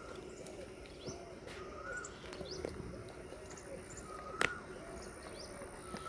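Doves cooing over and over in short arched notes, with other birds giving rising whistled calls and high chirps. There is a single sharp click about four and a half seconds in.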